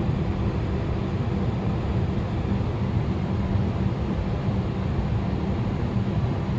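Steady low mechanical hum of running machinery, with no clicks or changes.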